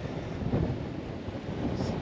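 Strong wind, about 25 knots, buffeting the camera microphone: a steady, rumbling rush of noise, heaviest in the low range.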